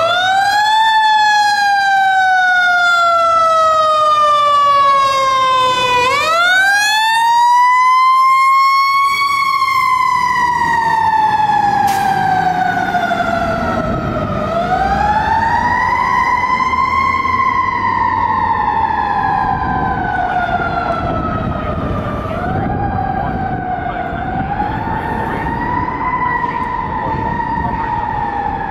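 Federal Q-style siren on a Spartan Metro Star fire engine, winding up quickly and coasting slowly down in long wails, four wind-ups in all. It grows fainter as the truck drives away, and there is one sharp click about 12 seconds in.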